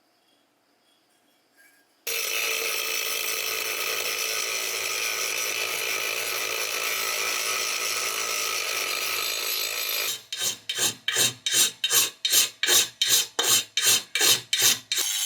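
Abrasive scrubbing of rusty bench-grinder parts. A steady scraping starts about two seconds in. Around ten seconds in it turns into rhythmic back-and-forth rubbing strokes, about two or three a second.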